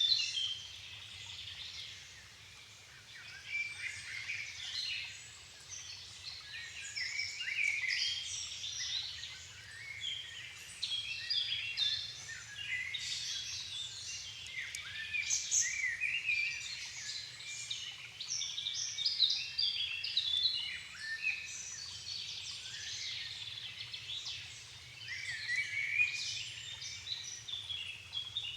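Dusk chorus of many songbirds singing at once, their overlapping phrases and chirps filling the air with no break.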